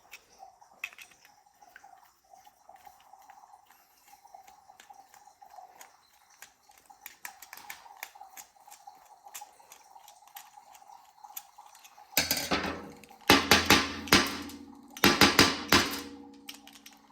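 Faint scattered clicks of hand-tool work over a faint steady hum, then from about twelve seconds in several loud bursts of metallic clattering and clinking, like tools and small carburetor parts being handled and set down on a workbench.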